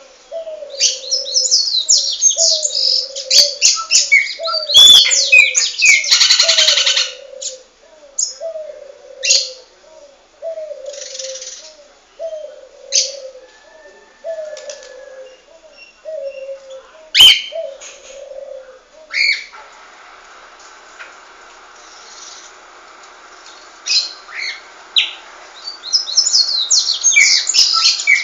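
Several pet birds calling. Bursts of high chirps sit over a low, falling call that repeats about once a second, and that low call stops about two-thirds of the way through. A single sharp click comes a little past the middle, and a steady hum starts in the background near the end.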